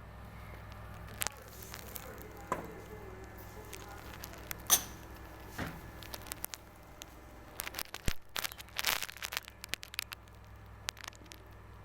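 Hands working with cupping equipment and supplies: scattered light clicks and taps, one sharp click a little under five seconds in, and a run of crinkling, crackling handling noise about eight to nine and a half seconds in, over a steady low hum.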